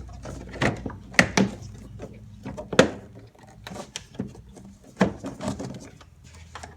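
A run of irregular knocks and clunks, about eight in all, over a low steady hum.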